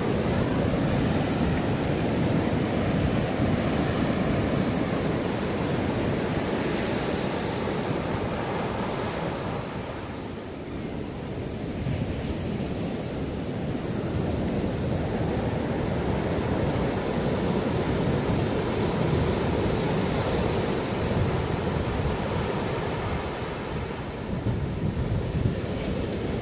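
Ocean waves washing up on the shore in a continuous surf wash. It eases off about ten seconds in, then swells again.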